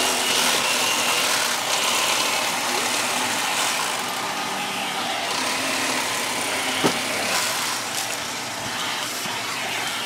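A motor running steadily under a broad, even rushing noise, with a couple of brief knocks later on.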